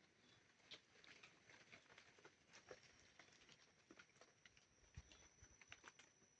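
Near silence with faint, irregular small clicks and taps and a faint steady high whine.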